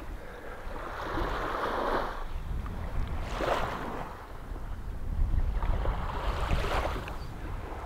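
Small waves lapping and washing on a sandy shore in several soft swells, with wind rumbling on the microphone.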